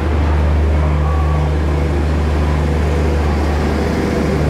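Garib Rath Express coaches rolling slowly past a platform as the train departs, over a steady low hum.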